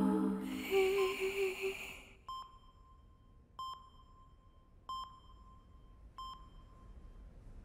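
Soft music fading out. Then a hospital patient monitor beeps four times at an even pace, about one beep every 1.3 seconds.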